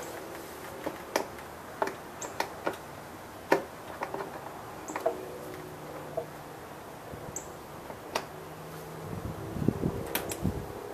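Scattered light clicks and taps of a Phillips screwdriver and screws being worked out of a scooter's plastic body panels, with louder handling noise near the end.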